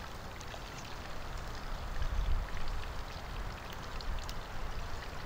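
Steady outdoor hiss with low wind rumble on the microphone, and scattered faint clicks of a steel knife and fork cutting bacon on a wooden board.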